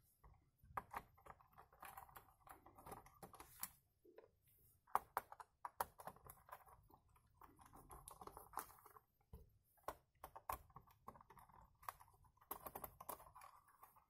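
Faint, irregular clicks and short spells of grinding as a screwdriver backs screws out of the plastic underside of a Logitech K220 wireless keyboard.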